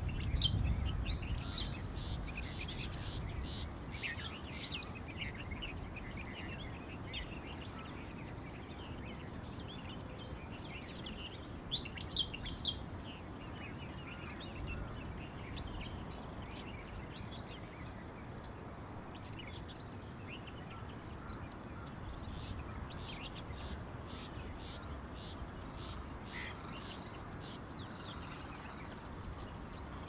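Small birds chirping in short, scattered calls, over a high, steady insect trill, likely a cricket, that comes and goes at first and runs unbroken through the last third.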